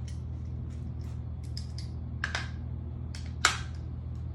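Metal parts of an AR-15 pistol being handled during reassembly of its quick-release barrel: a run of light clicks and rattles, and two sharp metallic snaps a little over a second apart in the second half.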